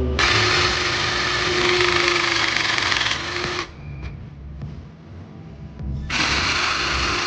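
A power tool running in two spells: one of about three and a half seconds, then a pause, then it starts again about six seconds in.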